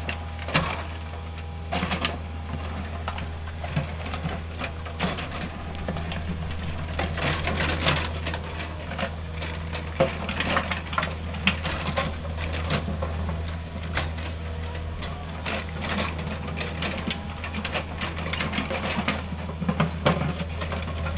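Hydraulic excavator engine running steadily while it works, with the bucket scraping and rocks clattering and knocking irregularly throughout.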